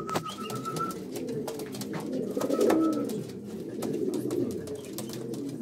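Pouter pigeons cooing, deep swelling coos repeated every second or two by a bird courting a newly paired mate, with scattered light clicks.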